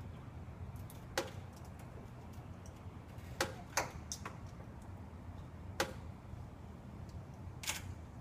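A few sharp, short clicks and taps, about six scattered over several seconds, over a steady low hum.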